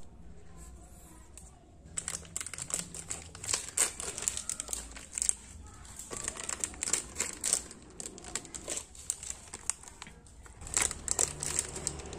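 Plastic wrapping around an ink refill bottle crinkling and tearing as it is handled and pulled open by hand. The crackling starts about two seconds in and goes on in irregular bursts.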